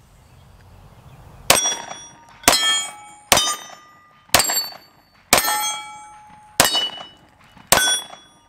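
Seven 9mm pistol shots from a Walther PDP firing 124-grain full metal jacket rounds, about one a second, each followed by the clang and ringing of a steel target being hit.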